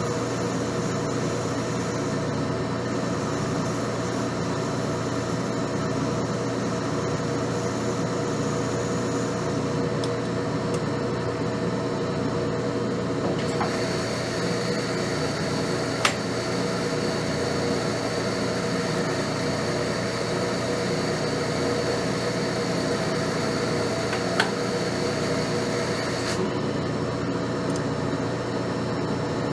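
Metal lathe running steadily, its spindle and motor giving a constant hum, while a small part held in a 5C collet is machined. For about twelve seconds in the middle a high steady whine joins in, with two sharp clicks during it.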